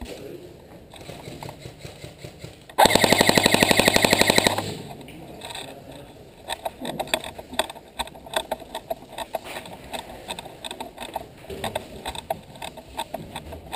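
Airsoft gun firing one full-auto burst of a little under two seconds, a fast even rattle of shots about three seconds in. Scattered faint clicks and knocks follow.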